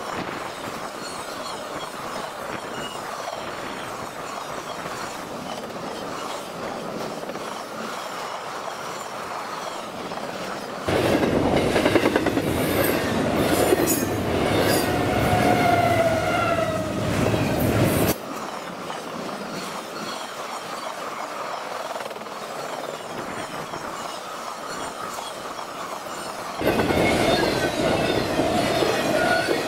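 Freight cars of a CSX double-stack intermodal train rolling past on the rails, a steady rumble of wheels on track. About a third of the way in it grows much louder for several seconds with squealing wheel tones, and it turns loud again near the end.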